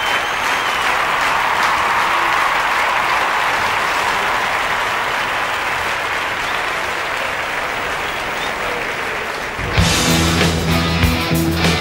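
Crowd in a sports hall applauding, an even clapping for about ten seconds; near the end rock music with guitar and bass cuts in suddenly and louder.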